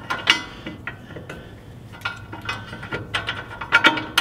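Scattered metallic clicks and taps as a quarter-inch carriage bolt is worked by hand through the slot in a 3/16-inch cold-rolled steel skid plate, the plate giving a light ring after the sharper taps. The clicks come closer together near the end.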